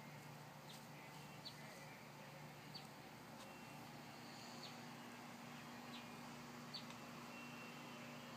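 Faint bird chirps outdoors: short, high, falling chips about once a second at uneven intervals, over a steady low hum.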